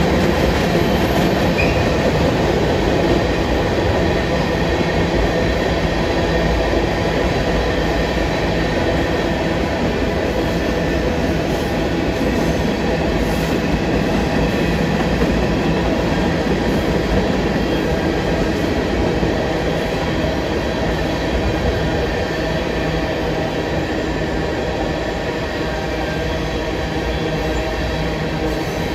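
A freight train's Union Pacific covered hopper cars rolling past at steady speed: a loud, even rumble of steel wheels on rail with a faint high ringing tone over it.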